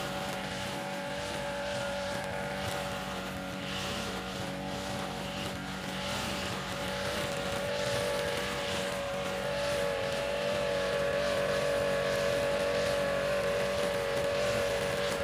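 Backpack brush cutter engine running steadily at high speed with a high, constant engine note, its spinning nylon line cutting grass.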